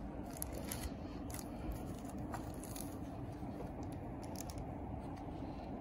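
Faint scattered clicks and rustles of a gloved hand handling the mini split indoor unit's plastic front panel, over a steady low hum.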